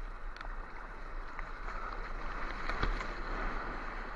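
Sea water washing and hissing around the camera in the surf, with wind rumbling on the microphone.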